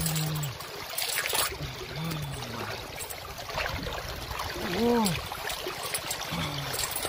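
Shallow stream water rushing and splashing over a rock bed, with a few short wordless vocal exclamations, one rising and falling about five seconds in.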